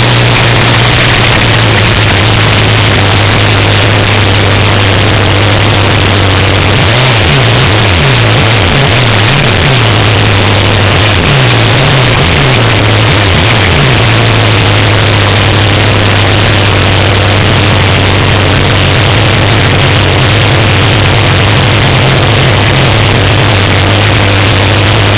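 A steady engine drone under loud rushing noise. Its low pitch wavers up and down several times in the middle, then settles again.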